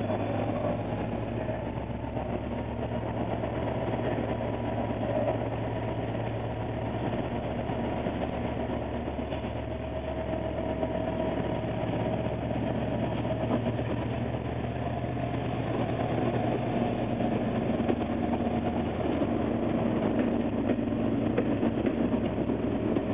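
Irish Rail 071 Class diesel-electric locomotive, its two-stroke EMD V12 engine running with a steady low throb as it hauls carriages slowly past. A few wheel clicks over the rail joints come near the end.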